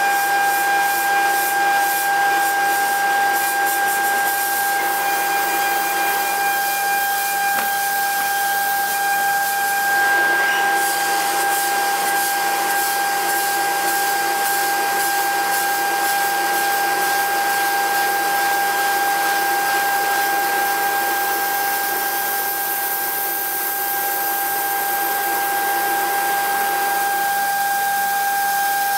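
CNC milling machine's spindle and end mill cutting a metal part: a steady high-pitched whine over a hiss of cutting. A fine rapid crackle runs through the first ten seconds or so, then eases.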